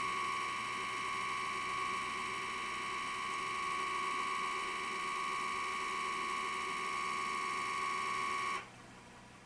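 Motor drive of a Metrohm 716 DMS Titrino's 20 mL exchange unit running with a steady electric whine as its piston refills the cylinder with titrant, cutting off abruptly about eight and a half seconds in once the cylinder is full.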